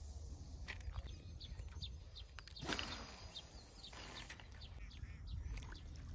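Wind rumbling on the microphone with faint bird chirps, and a short rushing swish about two and a half seconds in.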